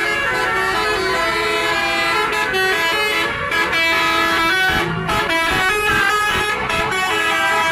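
Telolet horns on coaches: multi-tone musical air horns sounding short stepping tunes, several notes overlapping, with traffic noise underneath.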